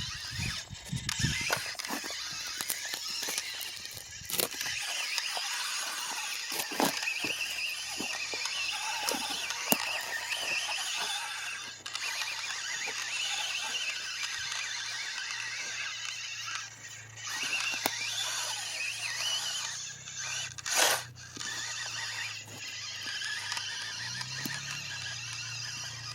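Whine of the FMS FCX24 1/24-scale RC crawler's small electric motor and gearbox as the truck crawls through loose dirt, wavering in pitch with the throttle, with scattered clicks and crackles from the dirt and a louder burst about 21 seconds in.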